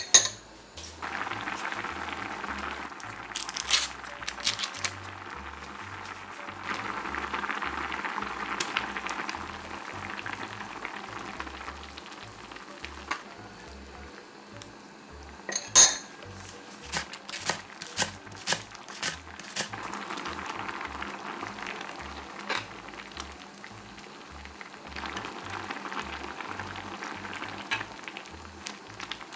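Pot of Korean stew bubbling at a boil, with a metal ladle and spoon clinking against the pot several times, most in a quick run about halfway through.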